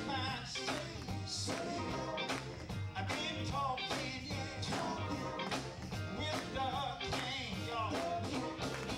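Live gospel group with male voices singing into microphones, backed by electric bass and a drum kit keeping a steady beat.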